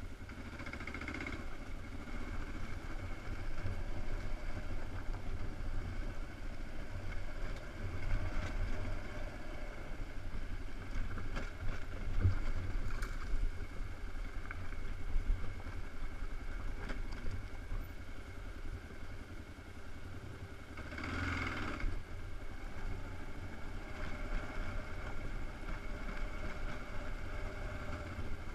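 Dual-sport motorcycle riding slowly over a rocky dirt track: a steady low engine rumble, muffled, with scattered knocks and rattles from the rough ground. About three-quarters of the way through there is a brief louder rushing noise lasting about a second.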